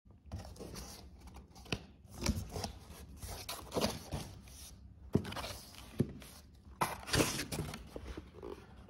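Cardboard shipping box being opened by hand: flaps scraping and rustling against the packing, with a few sharp knocks and taps along the way.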